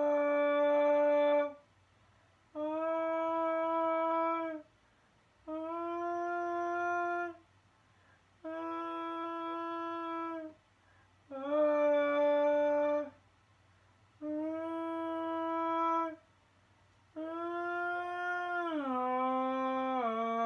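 A slow melody of long held pitched notes, seven in a row, each lasting about one and a half to two seconds with short pauses between. The notes move between two nearby pitches, and the last one slides down in two steps near the end.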